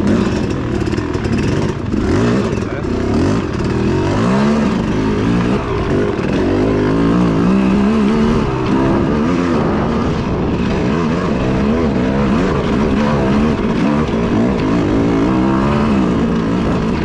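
Dirt bike engine being ridden hard, its pitch rising and falling over and over with the throttle and gear changes.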